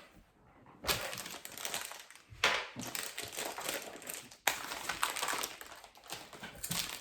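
Packaging crinkling and rustling as it is handled and opened, in a series of bursts with sharp starts about a second in, near the middle, and again past the halfway point.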